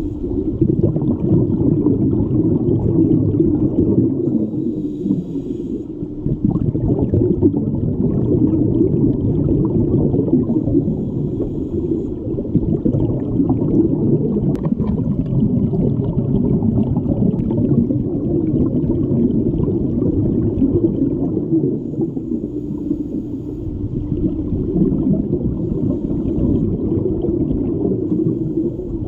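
Steady, muffled underwater rumble and gurgle heard through an action camera's waterproof housing submerged in an aquarium tank, swelling and easing every few seconds.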